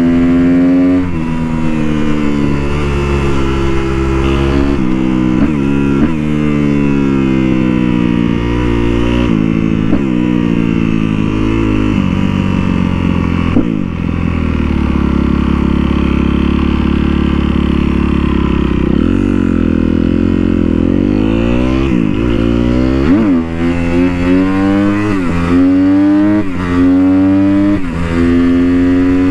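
Sportbike engine under hard acceleration: the revs climb and drop back sharply with each upshift, hold steady for a few seconds in the middle, then climb through more shifts near the end.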